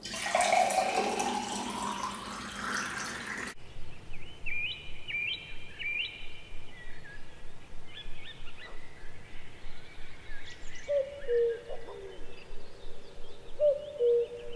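Water poured into a drinking glass, its pitch rising as the glass fills, stopping abruptly after about three and a half seconds. Then birds chirping, joined later by a lower call repeated in pairs of notes.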